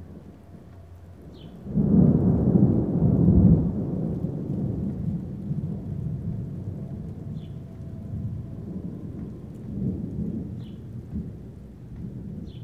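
Thunder: a sudden loud crack about two seconds in, then a long low rumble that slowly fades, swelling again briefly near the end.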